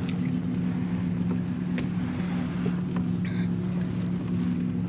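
Steady motor hum, held at one pitch, from the kayak's bow-mounted electric trolling motor. A few light clicks and knocks sit on top as the fish is handled in the landing net.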